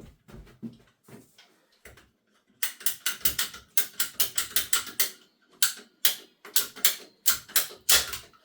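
Pipe cutter trimming the water supply pipe, clicking in quick repeated strokes of about three or four a second from about two and a half seconds in.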